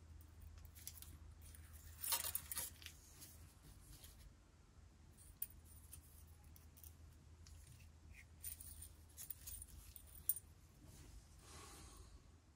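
Thin iron wire being bent and twisted around copper tubes by gloved hands: faint scraping, rustling and small clicks. A louder scrape comes about two seconds in, and a few sharp ticks follow later, over a low steady hum.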